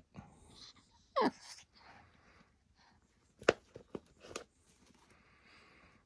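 Baby Catalina macaw chick giving one short, falling squawk, followed a couple of seconds later by a few sharp clicks.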